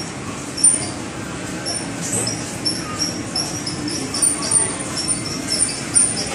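Indoor market background din with a run of short, high-pitched squeaks repeating a few times a second.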